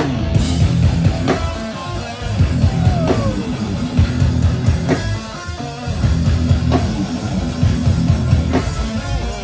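Live hardcore punk band playing loud, heavily distorted guitars over bass and drums, the low end dense and booming.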